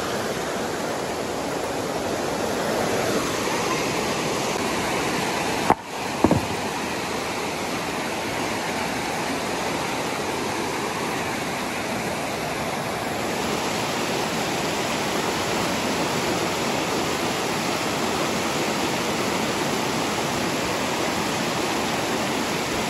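Shallow river rapids rushing steadily over boulders. A couple of sharp clicks come about six seconds in.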